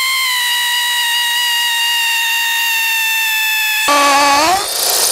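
DCA ADJZ2050i brushless cordless hammer drill in hammer mode, boring a 6.5 mm masonry bit into a hard stone. It gives a steady high whine that sinks slightly in pitch under load. About four seconds in, the whine drops to a lower tone that climbs and turns noisy.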